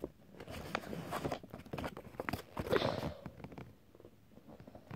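A folded paper leaflet being unfolded and handled: intermittent soft rustles and small crinkles, thinning out about three and a half seconds in.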